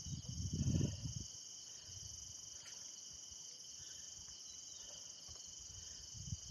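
Insects chirring in a steady, high-pitched chorus, with a few low rustling thumps in the first second.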